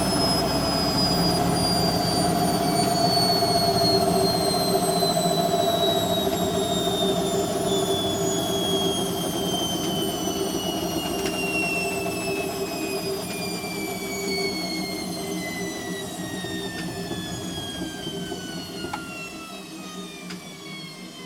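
Hoover Quattro System Power Jet washing machine spinning down after its 1300 rpm final spin: the motor whine glides steadily lower in pitch and the drum's running noise fades.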